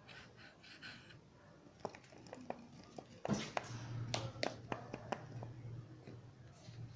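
Handling noise from a hard plastic toy being turned in the hand: scattered clicks and knocks, a louder thump a little over three seconds in, and a low steady hum after it.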